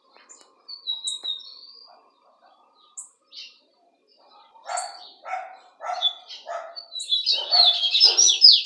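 Caged songbird calling: scattered high chirps, then a fast, loud, high warbling song phrase near the end. Under it, from about halfway, a lower coarse call repeats roughly every half second.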